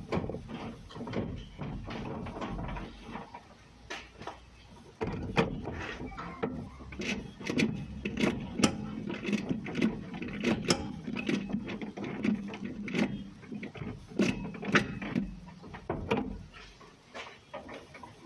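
VW Golf Mk1 gear linkage and gearbox selector being worked through the gears, giving irregular clicks and clunks as the freshly fitted gear links are checked for selecting. The clunks become busier and louder about five seconds in.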